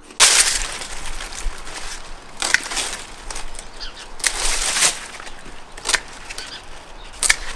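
Dry, withered sunflower stalks and leaves rustling and crackling as they are cut down and broken up by hand. The noise comes in several bursts, loudest just after the start and again around four to five seconds in.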